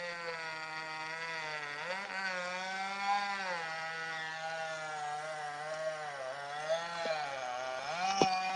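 Two-stroke chainsaw running as a crew cuts trees. Its pitch sags and climbs back several times as it is worked through the wood, with two sharp clicks near the end.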